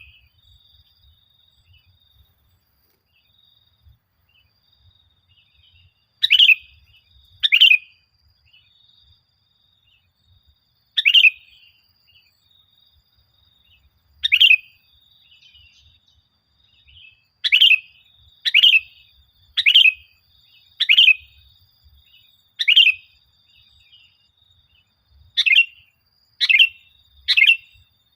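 Sooty-headed bulbul (kutilang) calling: about a dozen short, loud, downward-slurred calls, spaced irregularly and coming faster in the second half. A faint steady high trill runs underneath.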